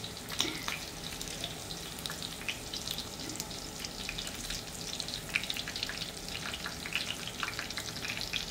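Pork belly cubes frying in their own rendered fat in a stainless electric skillet: a steady sizzle with many small crackling pops, as metal tongs turn the pieces.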